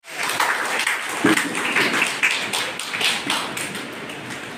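Hand clapping from a small group of people: many irregular, overlapping sharp claps.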